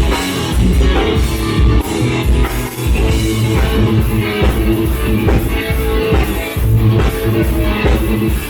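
Live rock music: electric guitar through an overdriven amp, with drums keeping a steady beat.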